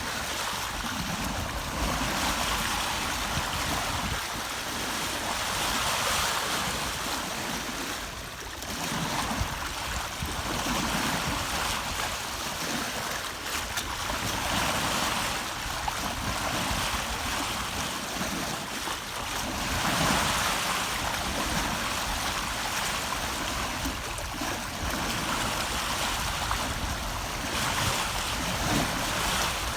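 Water rushing and splashing along a sailboat's hull as it sails, swelling and easing every few seconds, with wind.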